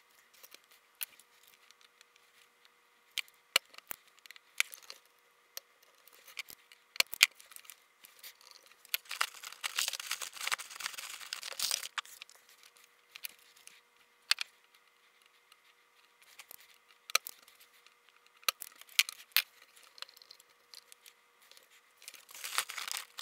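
Workbench handling sounds as a circuit board is desoldered and turned over by hand: scattered sharp clicks and taps, with a stretch of rustling and scraping about nine seconds in that lasts some three seconds.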